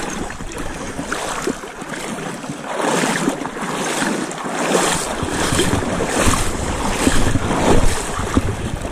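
Legs wading through river water: a swishing splash with each stride, roughly once a second. Wind buffets the microphone from about five seconds in.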